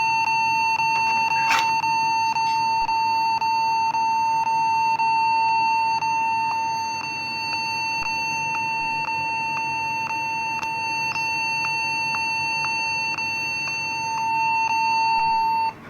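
Compaq laptop beeping at power-on: one continuous, steady, high electronic tone that does not stop, breaking off only briefly near the end. It is the laptop's startup fault beep, the unbearable unexpected sound that the owner sets out to cure by reseating the RAM and removing the keyboard.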